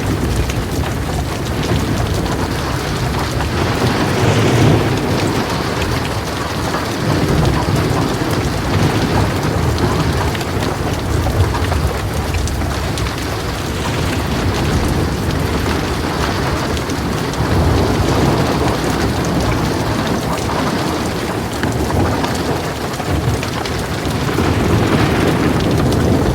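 Heavy rain pouring steadily on a surface, with low rolling thunder rumbling and swelling up every few seconds.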